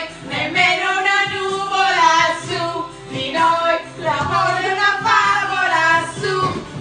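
A woman singing loudly with backing music, her held notes wavering.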